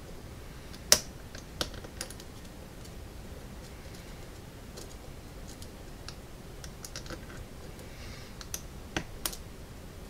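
Scattered small metallic clicks of a hook pick lifting the pin stacks of a solid-brass American Lock series 5560 padlock under tension, its serrated driver pins catching as they move. The sharpest click comes about a second in, with two more close behind and a pair near the end.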